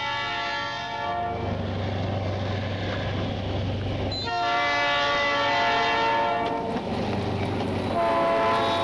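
Diesel locomotive horn blowing a steady chord in long blasts: one blast ends about a second in, another sounds through the middle, and a third begins near the end. A low steady rumble fills the gaps between blasts.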